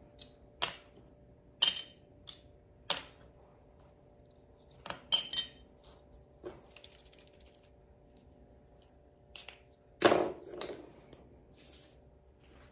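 Scattered clicks and clinks of small make-up repressing tools and a square pressing mould being handled and set down on a metal plate, some with a brief metallic ring. The loudest knock comes about ten seconds in.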